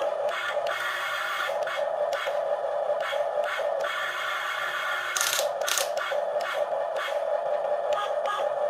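Small electric gear motors of a toy remote-control excavator whirring as it works, with sand scraping and pouring in surges. There is a louder hissy rush about five seconds in.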